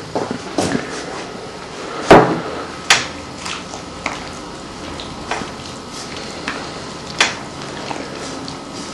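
Hands mixing flour and water into pizza dough in a large basin, with scattered knocks and clicks against the bowl, the loudest about two seconds in.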